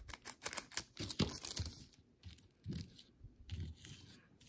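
Crinkling and tearing of a trading card pack's foil wrapper as it is ripped open by hand: irregular crackles and rustles, busiest in the first couple of seconds, then a few shorter bursts.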